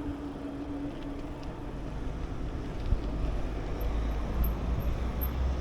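Low steady road rumble while riding along a road, with wind noise on the microphone; the rumble grows stronger about three seconds in.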